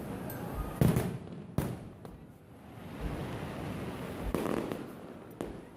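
Fireworks display: two sharp shell bursts about a second in, the first the loudest, then a rising spell of crackling and rumbling, and a thin crack near the end.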